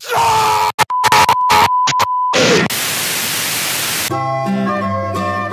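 Staged broken-broadcast effect: choppy bursts of static with a steady test-tone beep cutting in and out, then a couple of seconds of even white-noise hiss. About four seconds in, light plucked-string music starts.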